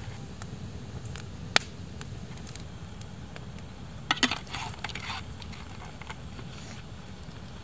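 Wood campfire burning with a steady low rush of flames, broken by sharp crackles and pops. The loudest pop comes about a second and a half in, and a cluster of crackles follows around four seconds in.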